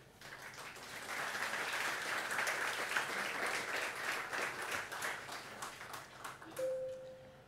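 Audience applauding, building up over the first second or two and dying away near the end. A brief steady tone sounds as the clapping fades.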